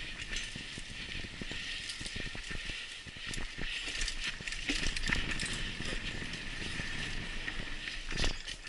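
Mountain bike ridden along a dirt singletrack: tyres running over dirt and leaf litter while the bike rattles and clatters with many small knocks over bumps and roots, with one hard knock near the end.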